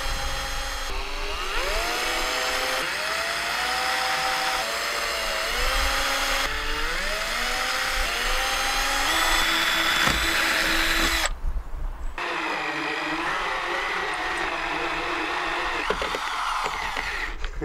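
Cordless drill motor spinning up over and over, its whine rising with each trigger pull, as it bores small pilot holes through a solid fibreglass boat deck. About two-thirds in, a heavier corded drill with a hole saw takes over, running at a steadier, lower pitch as it cuts larger holes in the deck.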